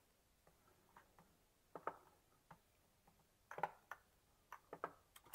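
Faint, scattered clicks of a computer mouse, about ten short clicks over a few seconds, some in quick pairs.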